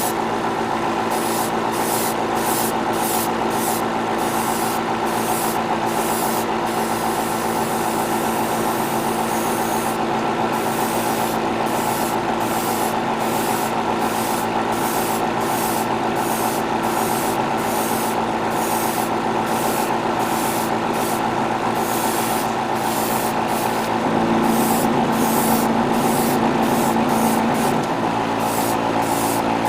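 Airbrush spraying in many short bursts of hiss, light passes of paint, with one longer pass about a third of the way in, over the steady hum of its air compressor. The compressor's hum grows louder for a few seconds near the end.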